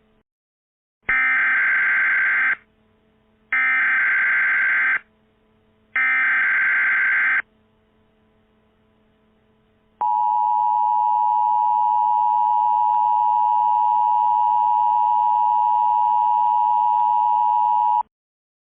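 Emergency Alert System signal: three short bursts of SAME header data tones, each about a second and a half long with a second's gap between them. About ten seconds in comes the steady two-tone EAS attention signal, which holds for about eight seconds and then cuts off suddenly.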